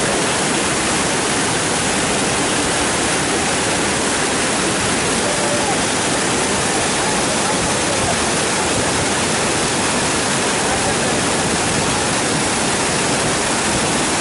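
Floodwater rushing out of open dam spillway gates: a loud, steady rush of water that does not let up.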